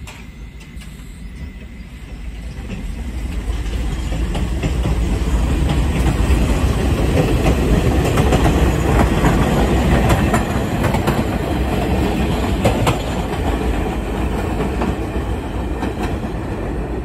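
R68A New York subway train passing close by, its steel wheels rumbling and clicking over the rail joints. The sound builds over the first few seconds, is loudest in the middle and eases off toward the end.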